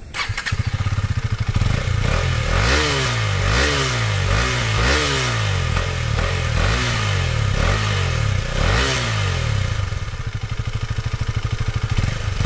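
KTM Duke 250 BS6's 250 cc single-cylinder engine heard through its stock exhaust, idling and then blipped in two runs of short, quick revs, each rising and falling back, before settling to idle for the last few seconds.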